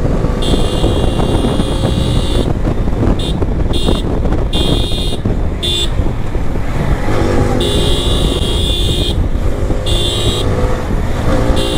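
Motorcycle under way at speed: steady engine and road noise, with heavy wind rush on the microphone. A high steady tone cuts in and out in patches several times.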